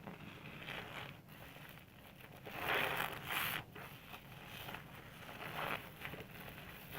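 Soap being rubbed into a lather: a series of scrubbing swishes, the longest and loudest about three seconds in, with another near six seconds.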